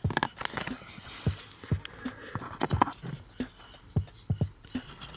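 Irregular plastic clicks and knocks from hands handling a VW Golf 5 accelerator pedal assembly and its wiring plug in the footwell, a dozen or so sharp taps spread unevenly over a few seconds.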